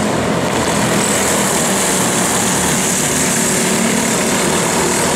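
A pack of racing go-kart engines running hard together as the karts pass, a loud, steady, buzzing mechanical din.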